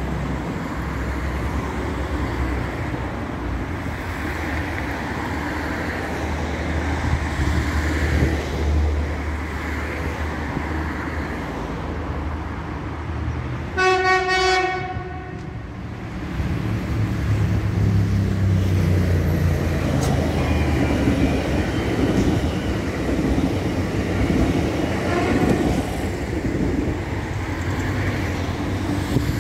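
Rumble of an electric train running on the line. About halfway through comes a single horn blast of about a second. Then the rumble of a Siemens Desiro class 460 electric multiple unit grows as it approaches and passes.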